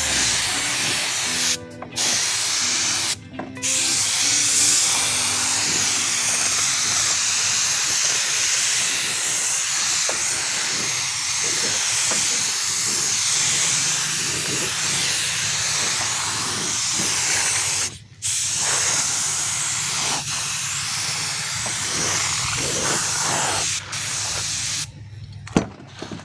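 Gravity-feed air spray gun spraying a thick coat of epoxy primer: a steady hiss that stops briefly a few times, about two and three and a half seconds in, and again later, dropping away near the end.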